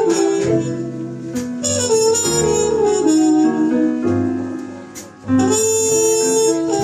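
Jazz quartet playing live: a horn melody over bass and drums. The line dips briefly about five seconds in, then comes back on a loud held note.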